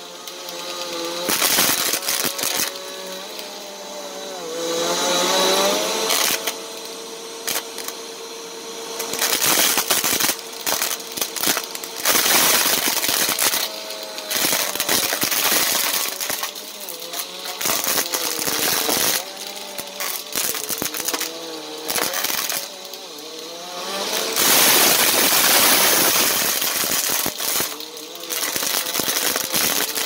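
Bissell upright vacuum cleaner running on a shag rug, sucking up plastic pony beads that clatter and rattle through the nozzle. The motor's whine wavers up and down in pitch, and the sound swells and drops as the vacuum is pushed back and forth.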